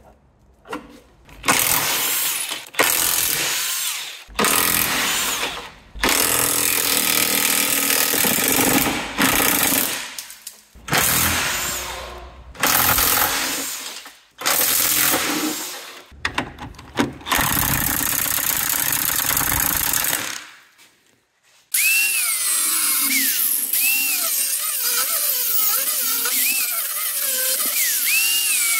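Power tool run in repeated bursts of one to four seconds with short pauses, as bolts are worked on during front subframe removal. Over the last seven seconds a different steady sound takes over, with wavering, sliding whistle-like tones.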